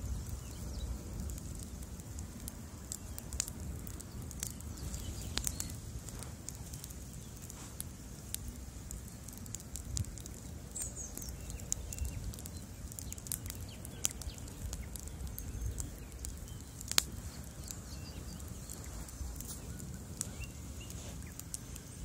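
Bonfire of wooden planks and a log burning: a steady low rumble of flames with scattered sharp crackles and pops from the wood, the loudest one about 17 seconds in.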